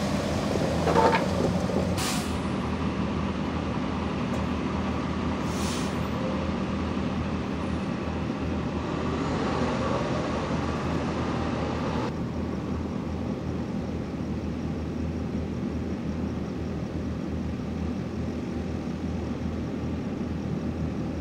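Steady low rumble of idling vehicle engines, with a louder swell about a second in and two short hisses of air about two and six seconds in.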